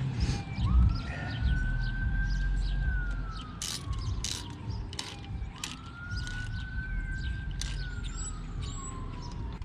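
A siren wails twice, each cycle rising and then slowly falling over about five seconds. Over it a hand ratchet clicks in short runs as steel bolts are snugged down slowly into an aluminium intake manifold.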